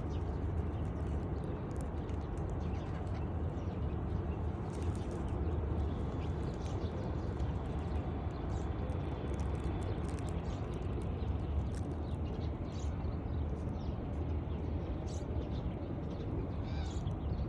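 Flock of pigeons cooing and fluttering over a steady low rumble, with scattered small clicks.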